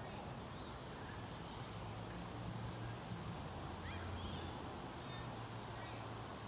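Outdoor park ambience: a steady low hum that swells a little in the middle, with a few faint, short high chirps from birds.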